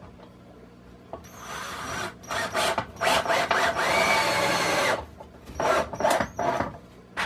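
Torx wood screws being driven into the wooden boards of a rack frame. Short grinding bursts come first, then one sustained run of about two seconds in the middle as a screw is driven home, then a few more short bursts.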